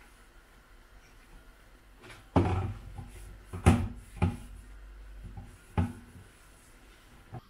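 A handful of hard knocks and clunks from kitchen things being handled and set down on the worktop, about five of them starting a couple of seconds in, the loudest near the middle.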